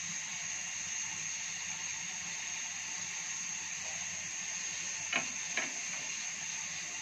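Pot of water at the boil, a steady hiss and bubbling, with two light knocks about five seconds in.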